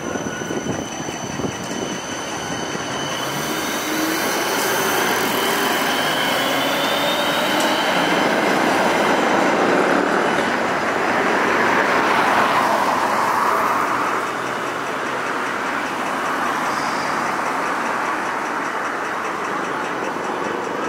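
Articulated city tram running on its street rails as it pulls away. The wheels squeal in thin, high, drawn-out tones on the track, over a rolling rumble that builds to a peak around the middle and then eases.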